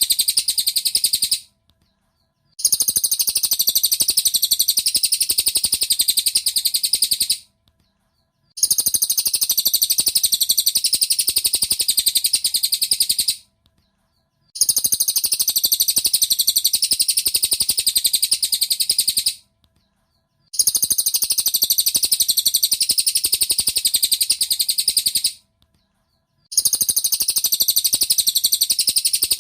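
Looped recording of a cililin bird's song: a fast, high-pitched run of chirps. Each stretch lasts about five seconds and breaks off for about a second before the same song repeats, as a masteran track for training songbirds.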